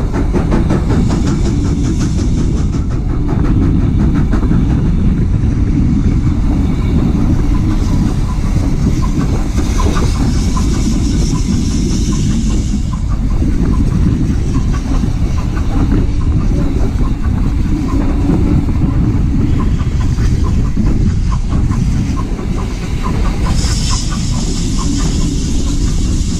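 Heritage railway train running along the track: a steady loud rumble with rapid rail clicks throughout, and stretches of hiss about ten seconds in and again near the end.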